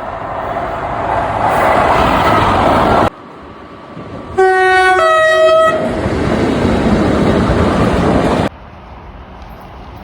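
Class 90 electric locomotive's two-tone horn giving a short blast, a lower note then a higher one, about four seconds in. Loud train running noise surrounds it and cuts off abruptly twice, about three seconds in and again near the end, where separate clips are joined.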